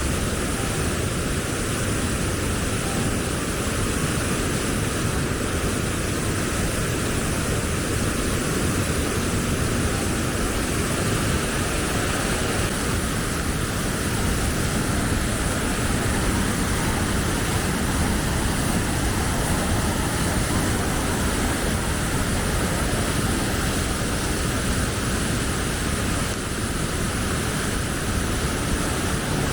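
Steady roar of a mountain waterfall, rushing water at an even level throughout.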